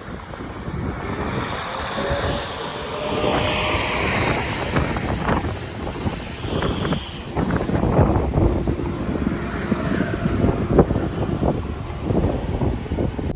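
Road traffic passing on a main road, with wind buffeting the microphone in gusts and knocks.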